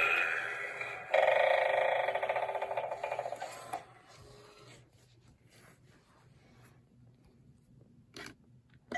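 A Gemmy animated eyeball Halloween doorbell plays a loud, rapidly rattling electronic sound effect through its small speaker. It starts about a second in and dies away over the next two or three seconds, and a short click follows near the end.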